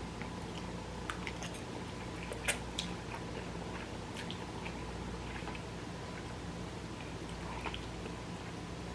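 A person chewing spicy instant noodles, with scattered small clicks, the sharpest about two and a half seconds in, over a steady low hum.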